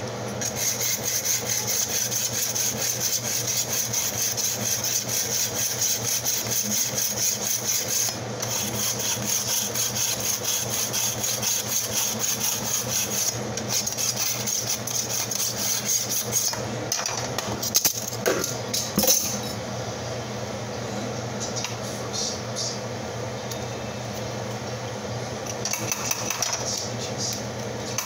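Steel kitchen knife drawn again and again through a handheld pull-through knife sharpener: a rapid, rhythmic rasping scrape for about the first sixteen seconds, with brief pauses. A few knocks follow as the sharpener is set down, then quieter, scattered scraping.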